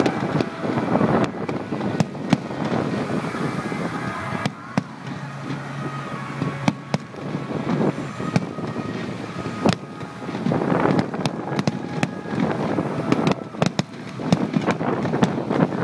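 Fireworks going off: a run of sharp bangs from bursting aerial shells, with crackling, heaviest about ten seconds in and again near the end.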